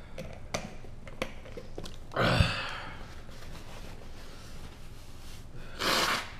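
A man blowing his nose into a paper napkin, a short noisy blast near the end. About two seconds in there is a louder breathy burst, and before it a few light clicks of a plastic bottle being handled.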